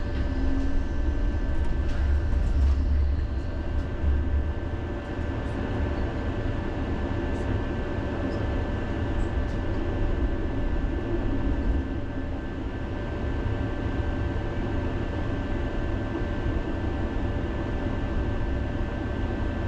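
Electric tram running along its rails, heard from inside the car: a steady low rumble, heavier in the first few seconds, with a constant high whine over it.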